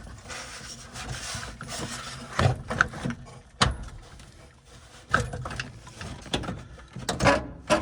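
Irregular knocks, clicks and scraping as a heater fan housing and its wiring harness are worked through a truck's firewall, with one sharp knock about three and a half seconds in.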